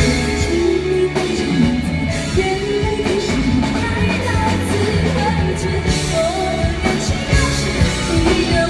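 A woman singing a Mandopop song live into a microphone, backed by a band with drums and bass, heard through the concert sound system.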